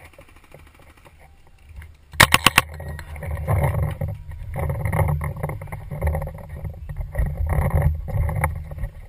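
A paintball marker fires a rapid burst of about five shots a couple of seconds in. Then the helmet camera picks up running footsteps, gear clatter and wind rumble on the microphone.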